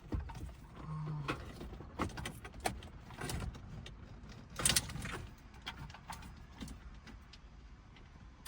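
Irregular clicks, knocks and rattles of car wiring and plugs being handled behind the dash, with the loudest knock about halfway through.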